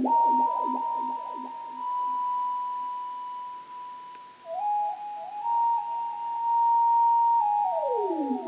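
Electronic instrumental music: a single thin, whistle-like lead tone that swoops down repeatedly in the first second or so, then holds one high note, joined by a second line that steps upward, and swoops down again near the end.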